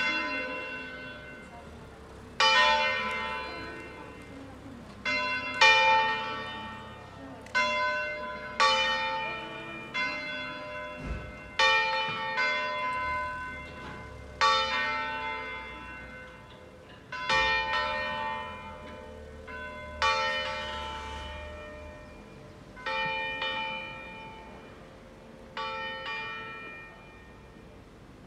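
Two swinging church bells rung in a 'distesa' (full swing), each stroke a loud clang that rings on and dies away, the two bells sounding irregularly against each other. Toward the end the strokes come farther apart and weaker. It is the Lenten call to weekday Mass.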